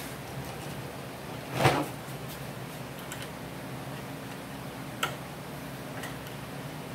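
A wooden collapsible workbench being folded shut on its hinges: one loud wooden knock about a second and a half in as the frame pieces come together, then a lighter click about five seconds in. A steady low hum sits underneath.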